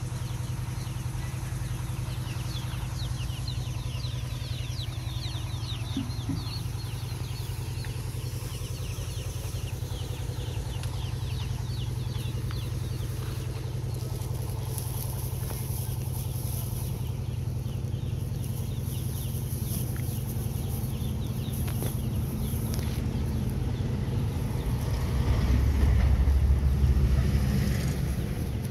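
An engine running steadily with a low hum, growing louder about 25 seconds in, with faint high chirps over it early on.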